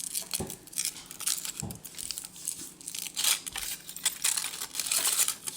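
Foil wrapper of a chocolate surprise egg crinkling and tearing as it is peeled off by hand, in many short rustles.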